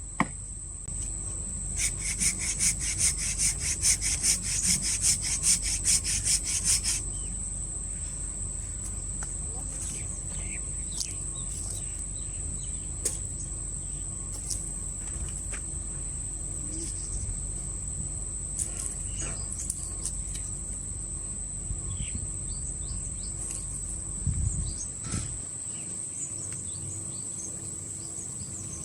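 Hand saw cutting through a fallen chinaberry trunk with quick back-and-forth strokes, about three a second, for some five seconds, then stopping; a few faint knocks follow. A steady high-pitched insect trill runs underneath throughout.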